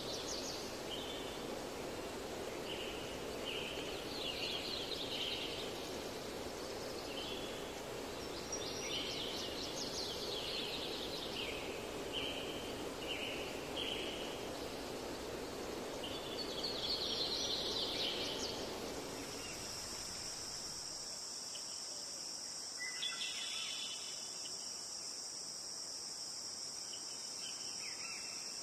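Outdoor nature ambience: clusters of short high chirps over a soft hiss, giving way about two-thirds through to a steady high trill of crickets.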